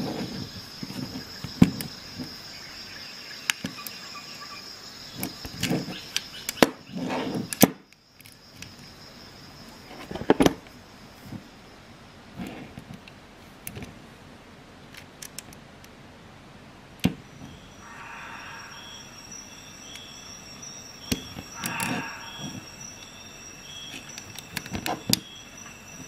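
Stainless steel Victorinox SwissTool multi-tools clicking and knocking against each other and the desk as they are handled, in scattered sharp clicks, with a faint steady high tone behind.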